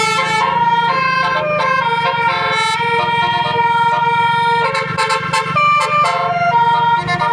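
Basuri telolet bus horn playing a tune: loud held tones stepping from one pitch to the next, over a steady low hum.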